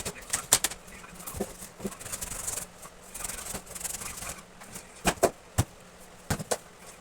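Cardboard and paper being handled: rustling and rubbing with scattered sharp taps and knocks, several coming close together about five seconds in.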